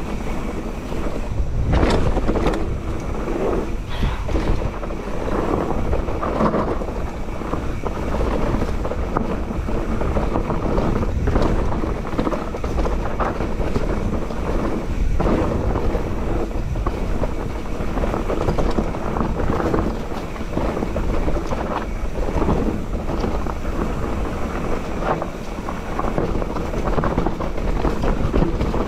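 Mountain bike descending a rough dirt singletrack at speed: wind rushing over the microphone, tyres rolling over dirt and rocks, and a steady stream of knocks and rattles from the bike over the bumps.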